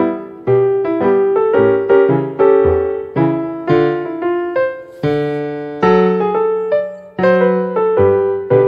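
Background piano music: a melody of struck notes, each fading after it is played, in a steady flowing rhythm.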